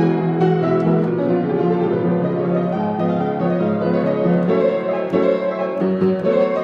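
Piano music: a run of notes and chords at a steady level, with no speech.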